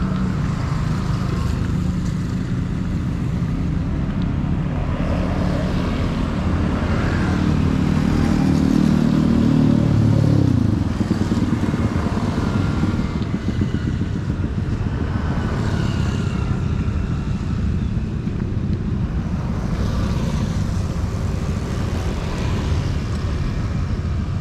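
Motorcycle traffic on a city street: steady engine noise, with one motorcycle growing louder to a peak about ten seconds in and then dropping in pitch as it passes.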